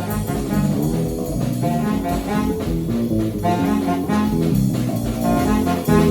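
Live jazz-rock improvisation: a tenor saxophone plays a moving melodic line over bass and drums.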